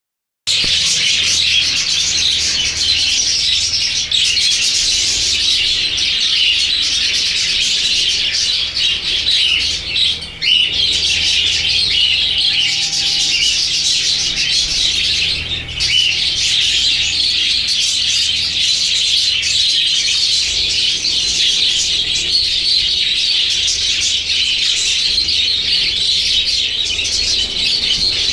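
A flock of budgerigars chattering and chirping continuously, many birds at once.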